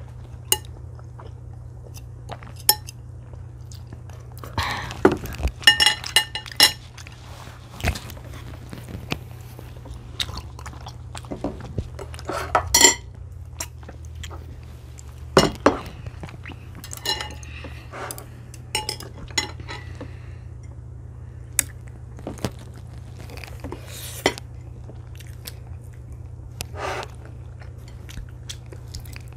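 Close-up eating sounds: chewing and crunching, with chopsticks and cutlery clicking and clinking against plates and bowls at irregular moments. A steady low hum runs underneath.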